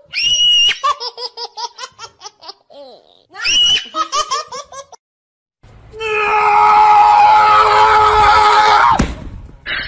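High-pitched laughter in two runs of quick pulses, each opening with a shrill squeal. After a short gap, a loud, steady sound with a held tone over a noisy background runs for about three seconds and ends in a sharp click.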